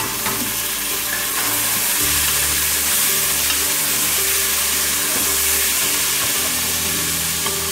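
Black chickpeas sizzling in hot oil in an aluminium pressure cooker as they are tipped in from a strainer and stirred with a wooden spoon.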